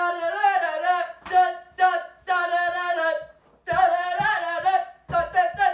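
High female singing voice in short phrases with brief pauses between them. A few low thumps fall under the second half.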